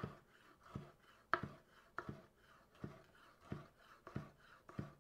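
Chef's knife slicing a bell pepper into julienne strips, each cut ending in a knock on the wooden cutting board: about eight even cuts, one every two-thirds of a second.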